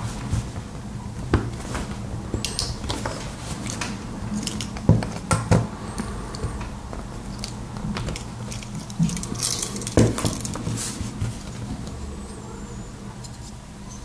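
Small hard plastic and metal parts being handled during the teardown of an inline RJ45 Ethernet coupler: scattered clicks, taps and scrapes with a few sharper knocks, over a steady low hum.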